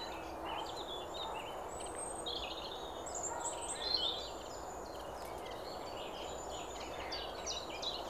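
Several songbirds singing at once in the trees, their phrases overlapping, over a steady background rush.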